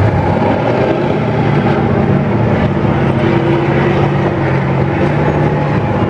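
Several tanks' diesel engines running loud and steady as the tanks drive and manoeuvre, a continuous low engine drone.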